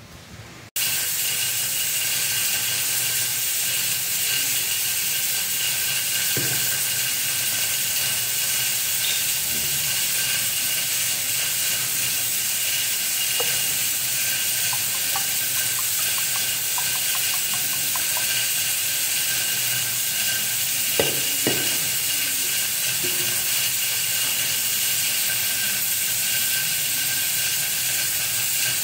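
A steady hiss with a faint high whine, starting suddenly about a second in and holding at one level. A few light knocks sound over it, and a run of soft ticks as cooking oil is poured from a plastic bottle into a bowl of semolina.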